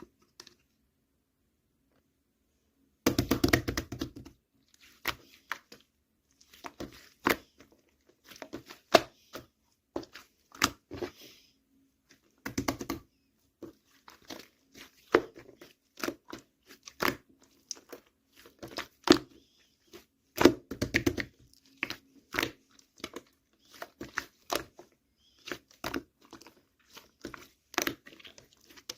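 Slime being squished, pressed and stretched by hand, giving irregular wet clicks, pops and crackles. It starts after a few seconds of quiet, with louder bursts of squishing at a few points.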